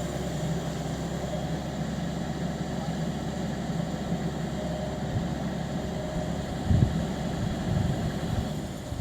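Heavy diesel machine engine running steadily, with a louder low knock about two-thirds of the way through.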